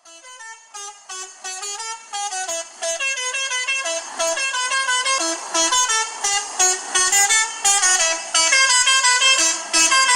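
Tourist bus musical horn playing a quick tune of short, stepped notes, growing louder over the first few seconds.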